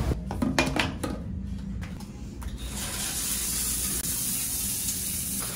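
A few sharp clicks and knocks, then, from about halfway in, a shower running in a tiled stall: a steady spray of water hissing onto the tile.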